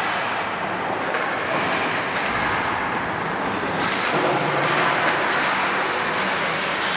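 Steady ice hockey rink noise: skates scraping and carving the ice, with a few faint clicks about four to five seconds in.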